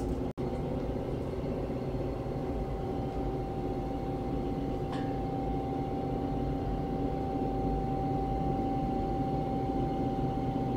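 Steady mechanical hum with a constant high whine, from a spray booth's ventilation fans running.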